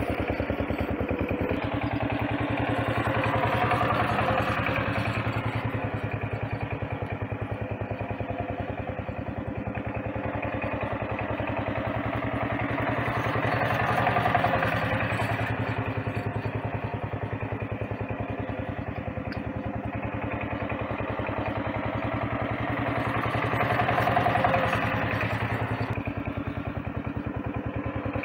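A small engine running steadily with a fast, even putter, swelling slightly in level about every ten seconds.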